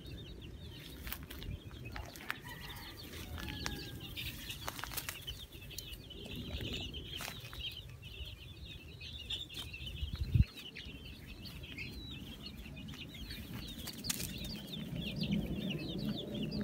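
A flock of chicks peeping constantly in many overlapping high chirps, with a single loud thump about ten seconds in.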